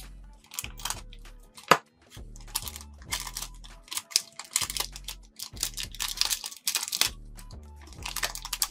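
Foil wrapper of a trading-card booster pack crinkling and crackling as hands pull it open, with one sharp click about two seconds in. Background music with low repeating bass notes plays underneath.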